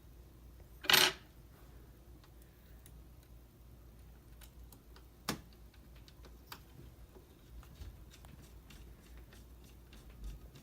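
Laptop parts being handled during reassembly: scattered small plastic clicks and light knocks, with one louder brief clatter about a second in and a sharp click about five seconds in.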